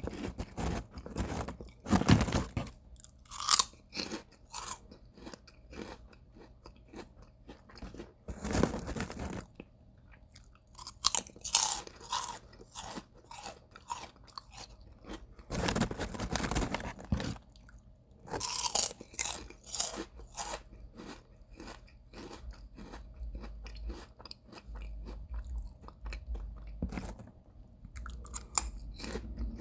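Close-up chewing of crisp potato chips: irregular crunching and crackling bites, with louder bursts of crunching about 2, 9, 16 and 19 seconds in.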